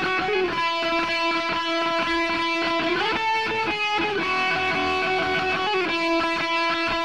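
Electric guitar alone playing sustained, ringing chords that change every second or two, with no drums yet: the intro of a rock song.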